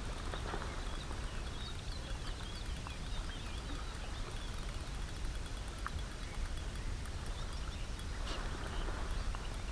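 Riverbank ambience: a steady low rumble of wind on the microphone, with small birds chirping in short high calls through the middle.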